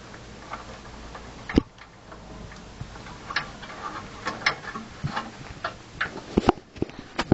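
Irregular clicks and taps of hands working the plastic butterfly clips on a PC case's drive-bay cover plate, with one sharp click about a second and a half in and a quicker run of clicks near the end.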